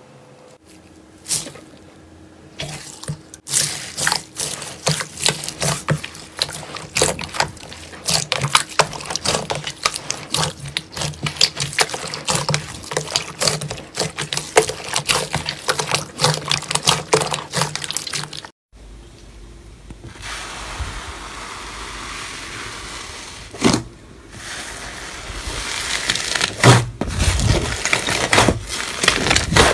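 Hands squeezing and pressing bead-filled clear slime: a dense run of small crisp crackles and pops. About two-thirds of the way through it cuts to a softer, steady squishing hiss from thick slime being pushed in a tub, which turns into louder crackles and squelches near the end.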